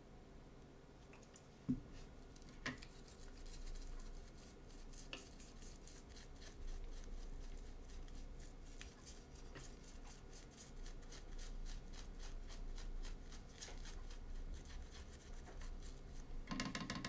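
Small brush scrubbing a circuit board, cleaning it: a long run of rapid scratchy strokes, several a second, after two sharp clicks near the start.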